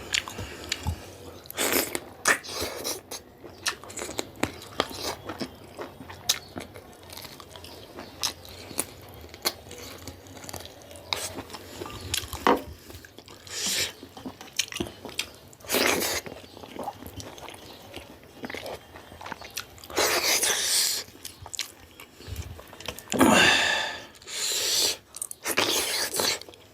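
Close-miked eating of rooster curry: wet chewing and lip-smacking with many small clicks, broken by several slurps of about a second each, most of them in the second half.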